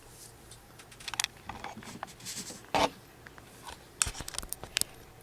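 Scattered small plastic clicks and rattles from handling a radio-control truck's front hub and steering parts, with a quick run of clicks near the end.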